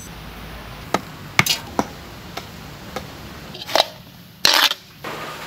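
Several sharp clicks over the first four seconds, then a short scraping rush of dry rice husks and ash being stirred by hand.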